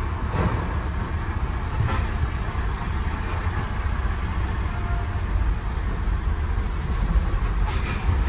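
Fire engine's diesel engine running, heard from inside the cab as it drives slowly off the ferry down the loading ramp: a steady low rumble with a few light knocks.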